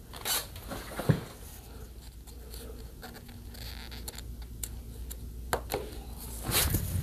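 Small handling sounds of tape work: scraping, scratching and light clicks as tape is peeled and pressed down. There is a sharp knock about a second in and a short rasp near the end.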